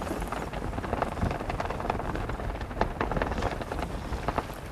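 Wind rushing over the microphone and water slapping against a small boat's hull make a steady hiss, scattered with many small irregular crackles.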